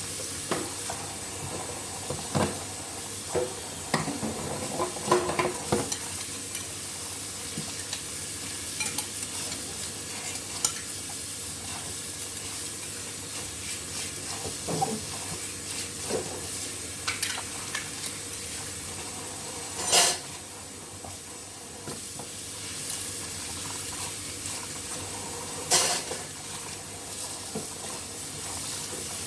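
Dishes and utensils clinking and knocking as they are washed, over a steady hiss of running water, with two louder clatters, one about two-thirds of the way through and one near the end.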